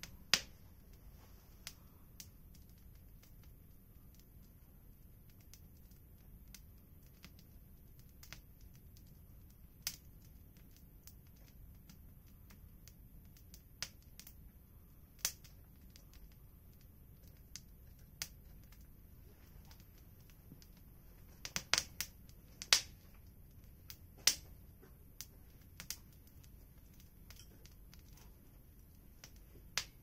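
Freshly lit wood fire crackling: single sharp pops come every second or few, with a quick cluster of several pops a little past two-thirds through, over a faint steady background.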